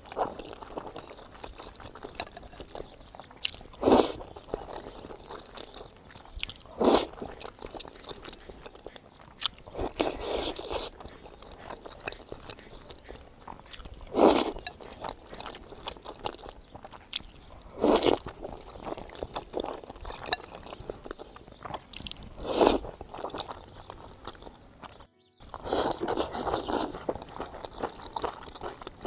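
A person eating close to the microphone: crunching bites and chewing, a loud bite every few seconds, over quiet background music.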